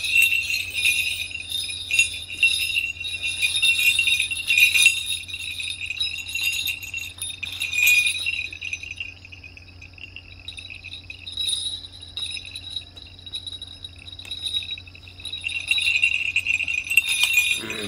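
Brass leg bells of Southern Straight dance regalia, strapped below the knees, jingling and clinking as they are handled and adjusted. The jingling is busiest over the first few seconds and again near the end, with a quieter stretch in the middle.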